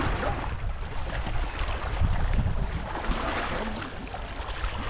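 Wind buffeting the microphone in a steady low rumble, with lake water washing against the rocks; the noise swells a little twice.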